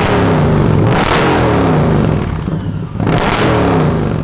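An Indian PowerPlus 112 liquid-cooled V-twin breathing through an ARO GP slip-on exhaust, revved in throttle blips over a deep low rumble. The note rises at the start, about a second in and again about three seconds in, then falls in pitch after each.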